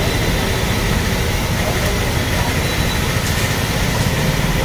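Moong pakodas deep-frying in a large kadai of hot oil, the oil sizzling and bubbling steadily over a steady low rumble.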